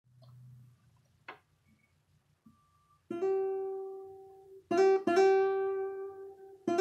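Acoustic guitar: after about three quiet seconds with a single faint click, four plucked chords are struck, each ringing out and slowly fading.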